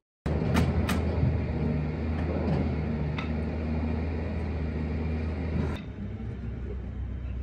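A steady low mechanical hum, like a motor running, with a few sharp knocks in the first three seconds. The hum drops in level about six seconds in.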